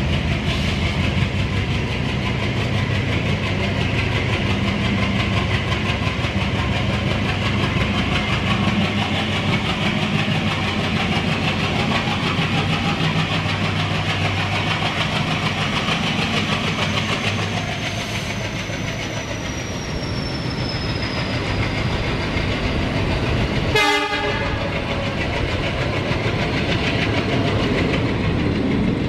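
Diesel-hauled passenger train running, heard from an open coach doorway: wheels clicking over the rails and the coach rattling, over a low steady drone. A thin high whine slowly falls in pitch past the middle, and a brief sharp sound comes about three-quarters of the way through.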